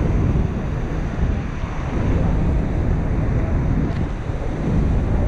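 Wind and spray buffeting the microphone in gusts, over the steady rush of Niagara Falls' water plunging into the churning river.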